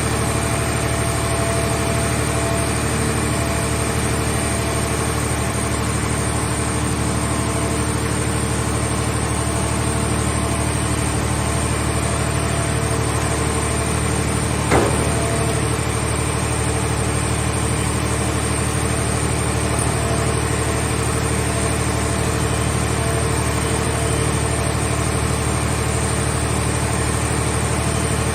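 Mobile car shell baler's power unit running steadily with an even engine hum, and a single sharp knock about halfway through.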